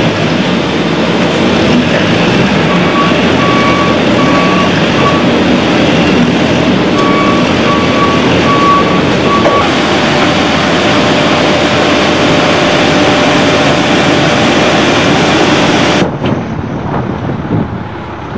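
Loud, steady industrial machinery noise, through which a forklift's reversing alarm beeps in two short runs of evenly spaced beeps. Near the end it gives way to quieter outdoor wind and vehicle noise.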